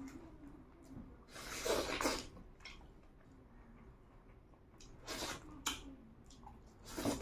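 Close-miked eating of grilled chicken by hand: small wet mouth and chewing clicks, with three loud breathy bursts, the longest about a second and a half in, another about five seconds in and a short one at the end.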